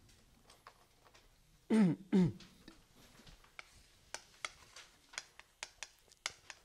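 Chalk tapping and clicking against a chalkboard in a quick, irregular run of sharp clicks as writing begins. About two seconds in come two short man's vocal sounds with falling pitch, the loudest thing here.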